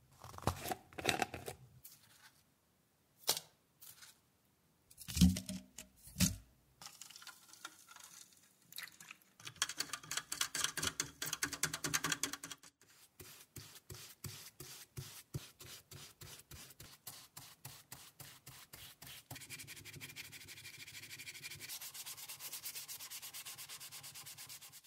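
A few knocks and clicks of containers being handled. Then oxalic acid solution is stirred in a glass for about three seconds, and a brush scrubs the solution onto a small wooden part in quick, regular strokes to lift stains. The strokes thicken into a steady scrubbing over the last few seconds.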